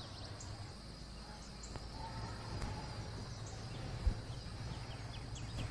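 Quiet outdoor ambience: a steady high insect drone and faint repeated bird chirps over a low background hum, with one soft low thump about four seconds in.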